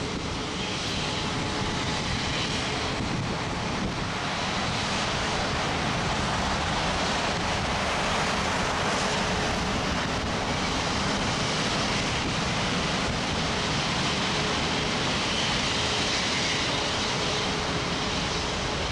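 Jet airliner engines running steadily at low power, a continuous rumble and hiss with a faint steady whine under it.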